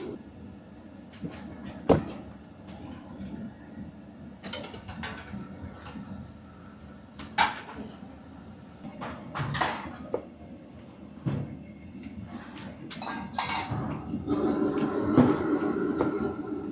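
Scattered knocks and clatters, like dishes and utensils being handled, one every couple of seconds. From about fourteen seconds in, a louder steady rumble with a whine sets in and keeps going.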